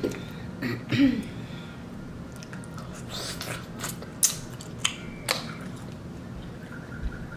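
Close-up mouth sounds of someone eating mussels: chewing, with a short throat sound about a second in and a few sharp clicks between about three and five and a half seconds.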